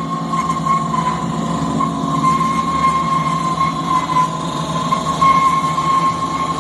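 Z28-215 two-axis rebar thread rolling machine running: a steady mechanical hum with a constant high whine over it.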